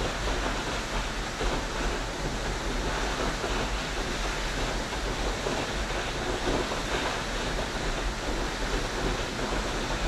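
Rushing water running steadily, an even noise without breaks or pauses, with a low rumble beneath it.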